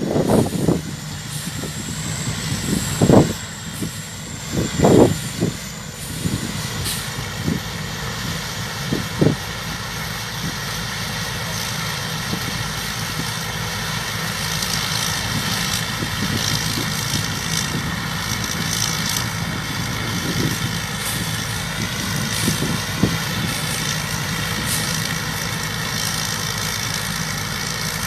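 Thai Charoen Karn Chang combine harvester running steadily, its engine and machinery making a continuous hum, with a few sharp knocks in the first ten seconds.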